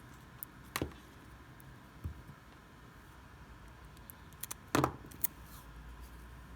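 A few sharp clicks and a soft knock of small hard objects being handled. The loudest is a double click near the end, over a faint steady hum.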